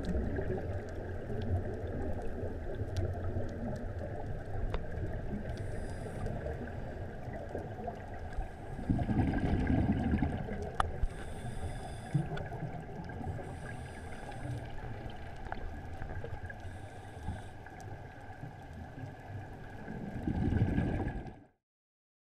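Underwater sound of a scuba diver's breathing: short regulator hisses on the in-breath and gurgling bursts of exhaled bubbles about 9 and 20 seconds in, over a steady hum. The sound cuts off suddenly near the end.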